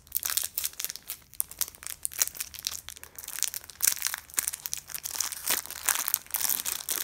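Thin clear plastic packaging bag crinkling and crackling in the hands as it is worked open, a dense irregular run of crackles.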